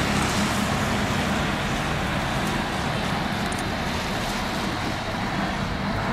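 Boeing 787 airliner's jet engines at low landing thrust as it flares and touches down, a steady rushing noise with a faint low hum, easing slightly.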